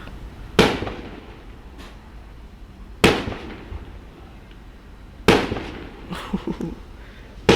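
Fireworks going off: four sharp bangs about two and a half seconds apart, each dying away over a second or so, with a few small crackling pops after the third.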